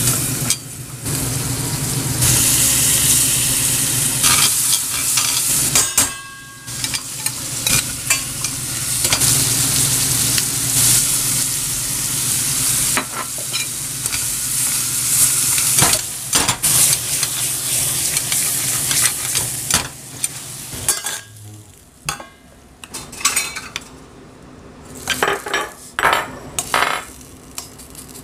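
Shrimp, mussels and sliced vegetables frying in lemon dill butter in a pan, with a steady sizzle and the clink and scrape of tongs stirring. Near the end the sizzle dies down, leaving mostly the clicks and scrapes of metal utensils against the pan.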